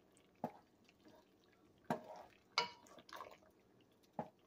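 A wooden spoon stirs shell pasta through water in a metal pot, knocking against the pot about four times with short, sharp clunks, with faint sloshing of water between them.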